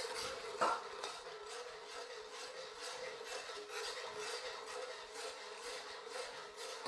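Metal wok spatula scraping and stirring around the bottom of a black steel wok in repeated rasping strokes, working sugar into a thick curry sauce. There is one sharper knock less than a second in.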